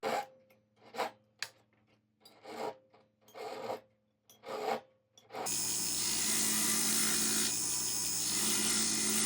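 About six short scraping file strokes on a gold ring, cleaning up the solder joint after soldering. About five and a half seconds in, a small motorised tool starts and runs steadily with a low hum.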